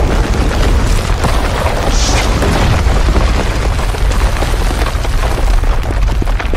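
Earthquake sound effect: a steady, deep rumble with dense crackling, the sound of the ground shaking.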